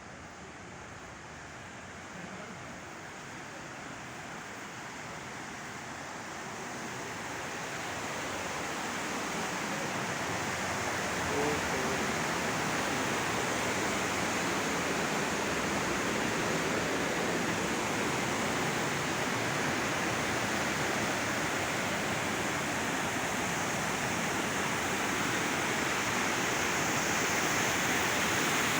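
Fast-flowing river water rushing steadily, growing louder over the first ten seconds or so and then holding level.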